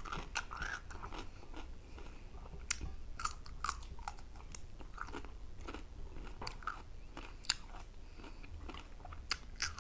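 Close-miked eating: raw cucumber slices bitten and chewed, with many short, crisp crunches scattered throughout.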